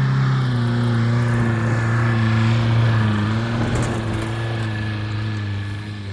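1986 VW Golf Mk2's engine running at steady revs under way, a low, even drone whose pitch sags slightly about three seconds in, with a brief rougher, noisier patch about four seconds in.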